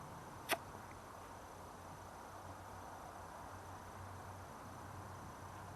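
Faint steady background hiss with a low hum and a thin high whine, broken by one sharp click about half a second in.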